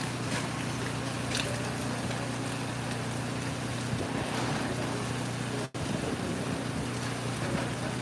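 Steady drone of an engine running over the rush of fast-flowing river water, with a brief dropout a little under six seconds in.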